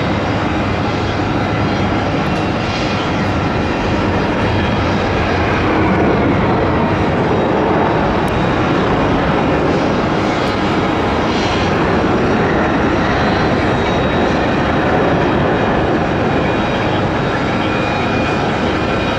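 Jet engines of a three-engine McDonnell Douglas MD-11F freighter as it lands, a loud, steady rush of engine noise that swells slightly about six seconds in.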